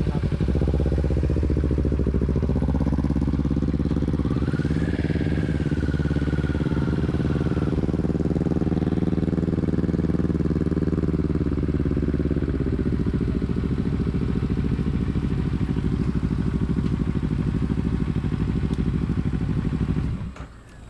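Motorcycle engine running steadily at low speed while riding, its pitch rising a little a few seconds in and easing back later; the engine cuts off suddenly near the end as the bike stops.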